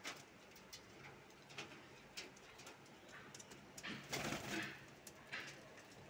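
Indian ringneck parakeets making faint, short calls, a few brief sounds about a second apart, with a louder burst about four seconds in.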